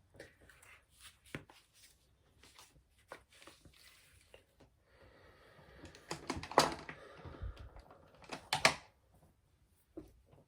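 Light clicks, taps and rustling of makeup items being handled. Two sharper, louder sounds come about six and a half and eight and a half seconds in.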